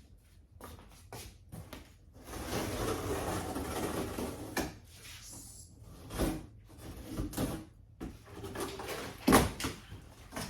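Large cardboard shipping box being handled: a scraping rustle for about two seconds, then several knocks and thumps, the loudest near the end.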